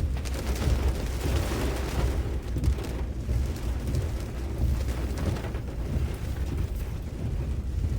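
Tropical-storm wind buffeting the microphone: a heavy, fluctuating low rumble with a hiss of wind over it.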